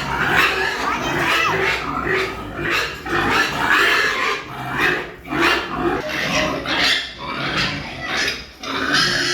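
Pigs grunting, a continuous run of short calls one after another.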